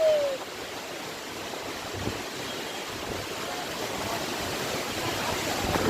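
Strong wind blowing, a steady rushing noise. A brief falling tone sounds right at the start.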